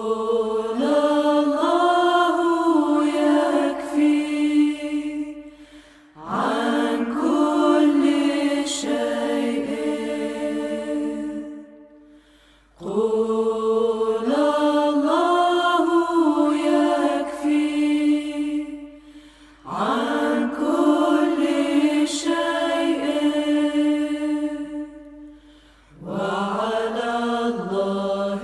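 Background music: slow singing in long held phrases, each swelling and fading, with a new phrase beginning about every six to seven seconds.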